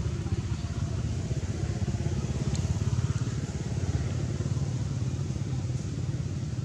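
A small engine idling steadily nearby: a constant low rumble.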